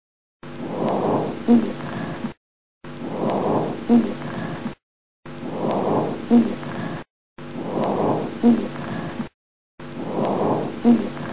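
Recorded breath sound: one breath cycle played over and over, about five times, with short silent gaps between repeats. Each breath is a rushing airflow sound with a brief pitched note about two-thirds of the way through.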